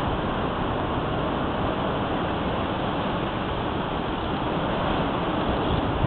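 Storm-force wind rushing through garden shrubs and trees, a steady hiss.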